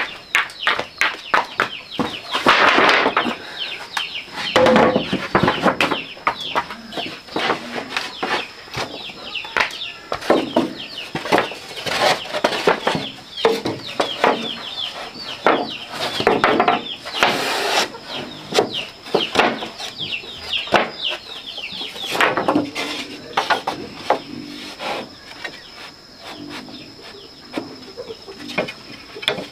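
Chickens clucking and calling: many short calls falling in pitch, in quick irregular succession, over a faint steady high tone.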